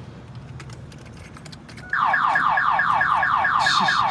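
Pontiac Firebird's car alarm siren goes off about two seconds in: a loud, rapidly repeating falling chirp, roughly eight a second. It is set off by an attempt to start the car while the alarm is still armed.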